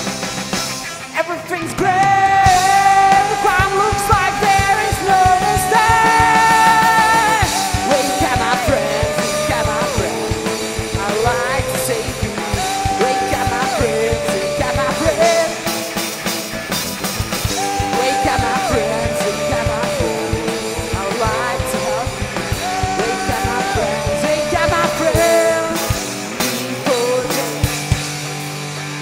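Live rock band playing with electric guitars, bass and drums under a melody sung in long held notes. The band drops somewhat in level near the end.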